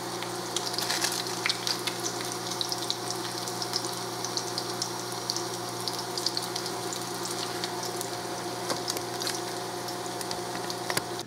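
Salmon patties frying in a pan: a steady sizzle with many scattered small crackles and pops, over a low steady hum.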